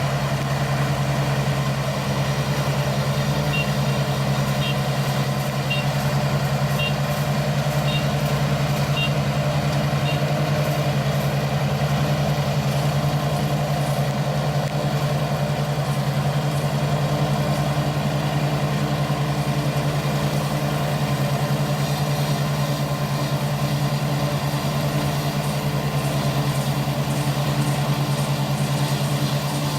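ISEKI 325 rice harvester running steadily at working speed, its engine giving a constant hum. For several seconds near the start a faint high beep repeats about once a second.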